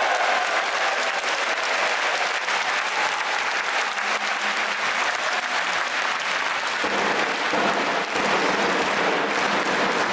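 Football stadium crowd applauding, a dense steady clatter of clapping. A lower-pitched crowd din joins in about seven seconds in.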